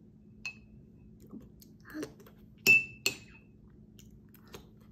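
A metal spoon clinking against a ceramic mug: a few sharp clinks, each with a brief ringing tone. The loudest two come close together about three seconds in.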